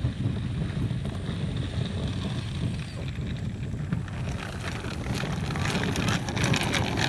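Wind rumbling on a phone's microphone outdoors. A crackly scuffing noise grows louder in the second half.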